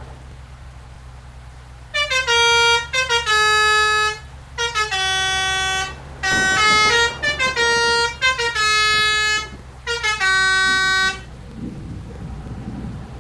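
Basuri telolet musical horn on a bus playing a tune: about six loud phrases of stepped notes that go up and down, with short breaks between them. It stops about two seconds before the end, leaving a low steady rumble.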